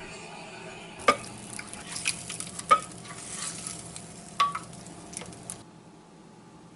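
A slotted spatula stirring pieces of northern pike in hot butter sauce in a glass baking dish, with several sharp clinks of the utensil against the glass. The stirring stops about a second before the end.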